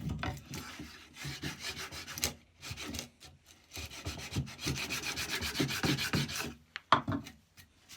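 Record No. 71 router plane's blade paring wood from the floor of a recess in many short, quick scraping strokes, with a sharp knock near the end.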